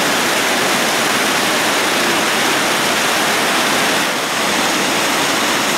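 Steady, loud rush of river water pouring over a weir.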